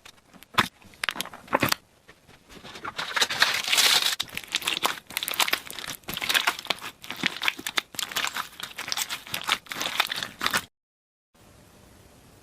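Crunchy slime being pressed and squeezed: a few separate crunches, then dense runs of small crackles and pops for several seconds. The sound cuts off abruptly near the end, leaving faint room hiss.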